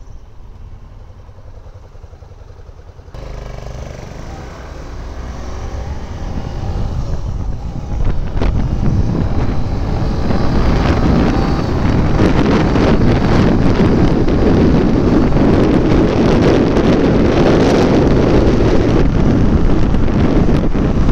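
Yamaha XTZ Crosser 150 motorcycle being ridden, its single-cylinder engine running under wind rushing over the microphone. The noise builds and becomes much louder about 8 seconds in, then stays steady.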